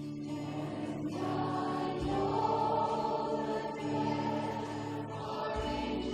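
Worship song: sustained choir-like singing over instrumental accompaniment, with long held notes and the bass note changing about two seconds in and again near the end.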